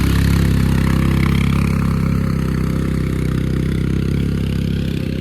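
A small vehicle engine running steadily at low revs, a little quieter toward the end.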